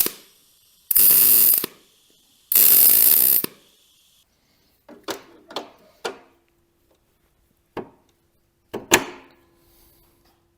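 Two short welding tacks, each a loud sizzling crackle of about a second, fixing a 10 mm square steel bar to a thin, rusted mower deck. Then a few sharp metal knocks, some ringing briefly, as the bar is worked.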